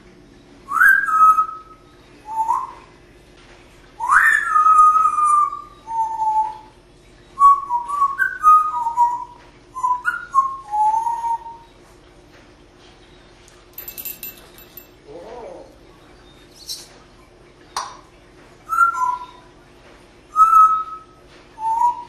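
African grey parrot whistling: short phrases of clear notes that slide up and drop down in pitch, repeated with short pauses and a longer quiet gap about halfway through.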